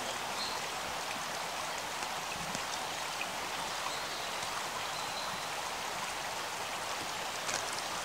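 Steady hiss of water.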